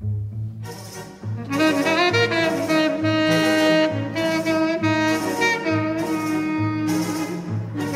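Tenor saxophone playing a melody of long held notes over an orchestral accompaniment with a steady low bass pulse; the saxophone comes in about a second in. Live concert recording.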